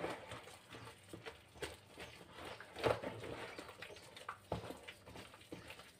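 Hand kneading yeast dough with flour in a plastic bowl: irregular soft thuds and knocks, the loudest about three seconds in.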